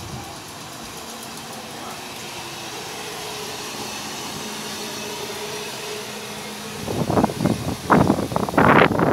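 Electric multiple-unit passenger train running into and past the platform: a steady traction hum with a faint held tone, then loud, irregular rushing and thumping in the last two seconds as the carriages draw level.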